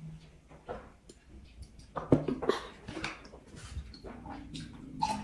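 Drinking water from a glass: gulps and swallows with small mouth noises and light clicks of the glass, and a louder knock about two seconds in.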